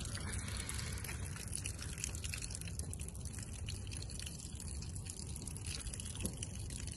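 Water trickling and gushing from bullet holes in plastic water jugs shot with 9mm rounds, over a steady low rumble.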